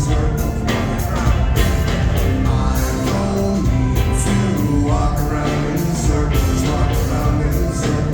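Alternative rock band playing live, with singing over bass and a steady drum beat.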